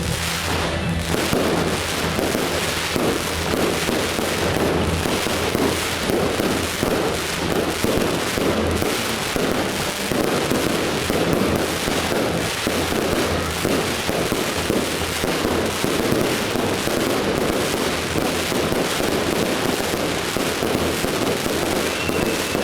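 Fireworks display going off in a dense, continuous barrage: many quick bangs and crackles with no break.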